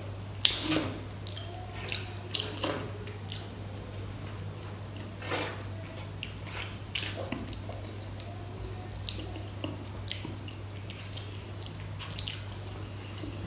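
Eating sounds: fingers swiping kadi off a stainless steel plate, and wet mouth smacks from licking fingers and chewing. They come as short clicks scattered throughout, loudest in the first three seconds or so.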